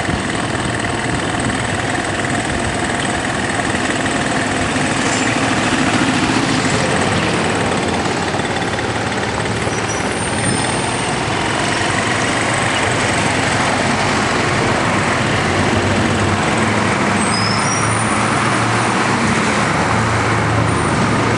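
Steady street traffic noise, with vehicle engines running and a continuous hiss of road noise.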